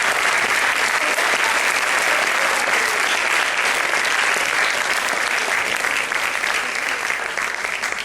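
Theatre audience applauding, a steady dense clapping throughout.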